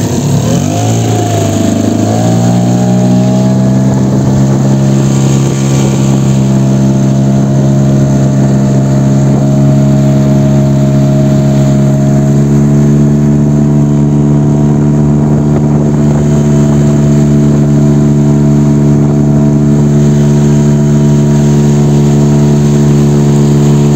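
Outboard motor of an inflatable fishing boat running under way. Its pitch rises over the first couple of seconds, then holds steady.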